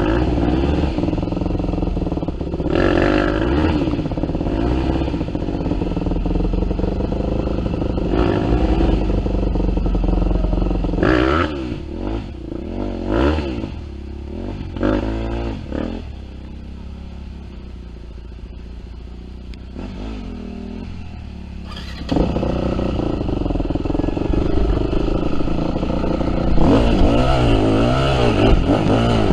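Yamaha WR250F's four-stroke single-cylinder engine riding on a dirt trail, its pitch rising and falling with the throttle. About halfway through it settles to a quieter low-rev running for several seconds, then opens up again and runs hard to the end.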